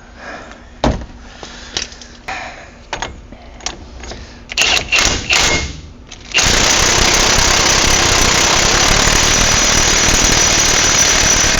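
A few loose clicks and knocks of tools, then about six seconds in an impact wrench starts hammering steadily and keeps running, driving down the axle nut on the wheel hub.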